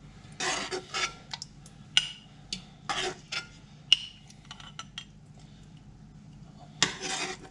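Metal spoon scraping the pot and clinking against a glass pint jar as chunky salsa is scooped and ladled in: an irregular run of scrapes and sharp clinks.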